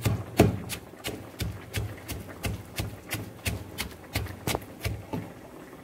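Wooden pestle pounding red chillies, garlic and salt in a wooden mortar: steady, even knocks with a dull thud, about three a second.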